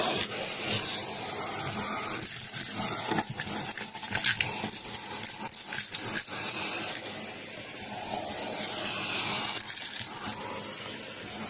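Shark vacuum cleaner running, its nozzle sucking popcorn kernels, fluff and craft bits off a carpet, with hard bits clicking and rattling up the hose, thickest between about two and six seconds in.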